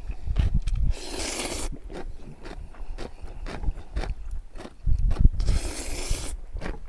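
Close-up crunching and chewing of kimchi: many short crisp crunches with dull thuds of the chewing. Two short hissing noises come in about a second in and again near 5.5 s.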